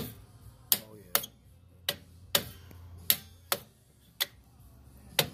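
Hammer tapping on a golf cart's rear drum-brake assembly: sharp metal taps, roughly two a second in loose pairs, each with a short ring. The taps are meant to free a brake slider stuck with rust, soaked in WD-40.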